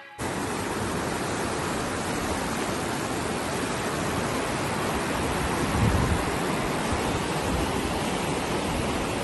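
Whitewater river rapids rushing steadily, a continuous even roar of churning water, with a brief low rumble about six seconds in.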